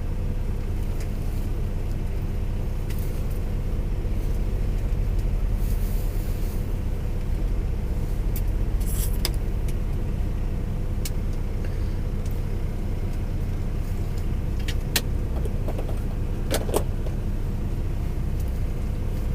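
Steady low mechanical hum inside a truck cab, with a few light clicks and ticks scattered through it.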